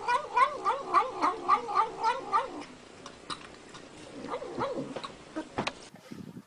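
An animal's rapid, repeated wavering cries, about three a second, that stop about two and a half seconds in, followed by a few fainter cries before the sound cuts off suddenly.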